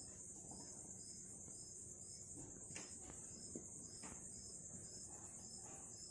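Night-time insect chorus, crickets chirping: a steady high trill, with a second insect chirping about twice a second. A couple of faint clicks come near the middle.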